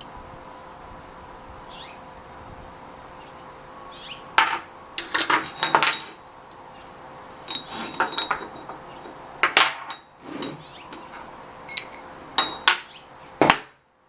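Steel parts clinking and clanking together as they are handled, a dozen or so sharp metallic strikes with a bright ring, over a faint steady shop hum.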